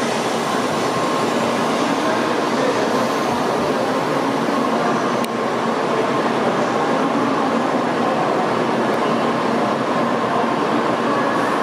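923 series "Doctor Yellow" shinkansen inspection train slowly arriving along the platform: a steady, even rush and hum with a faint high tone running through it.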